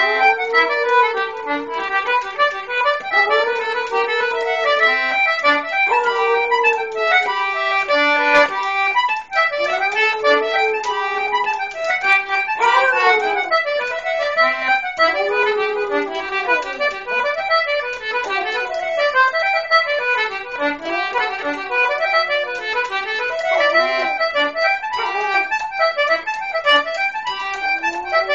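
Concertina playing a fast Irish reel while a dog howls along, in repeated long howls that rise and fall in pitch every few seconds.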